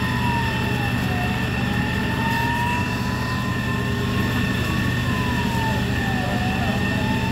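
Fire engine siren wailing slowly, its pitch falling and rising about every five seconds, over a steady mechanical drone with thin high whining tones.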